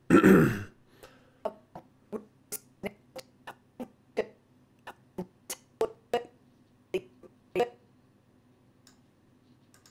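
Computer keyboard clicking: about fifteen sharp, separate key presses at uneven intervals, stopping about three-quarters of the way through. A short, loud puff of noise comes right at the start.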